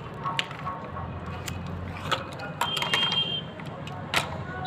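Hard plastic toys knocking and clicking a handful of times, sharp and separate, as a toy figure is handled and set onto a toy tractor, over a steady low hum.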